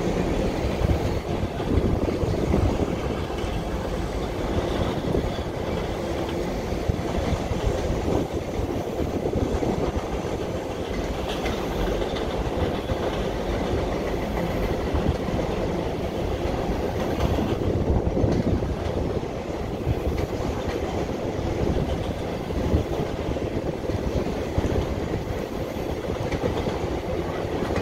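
Freight train of autorack cars rolling steadily across a steel girder bridge: a continuous rumble of wheels on rail with a fast, even clatter.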